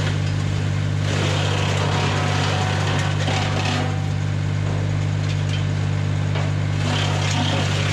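Tractor engine running at a steady speed and driving a PTO-driven wood chipper. A louder rushing noise swells over the hum about a second in and again later.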